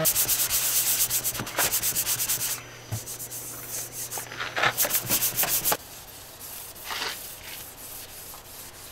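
Sandpaper rubbed by hand over the painted steel side of a school bus, scuffing off old paint ahead of primer. It comes as quick back-and-forth scraping strokes in two bursts, with a few lighter scrapes near the end.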